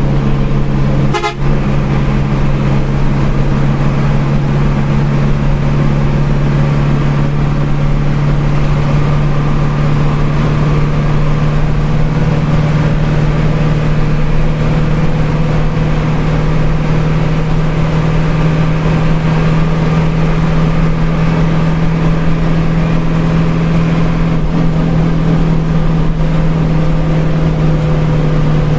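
Hino 1J bus engine running at a steady speed, a loud even drone with a constant pitch. A single sharp click about a second in.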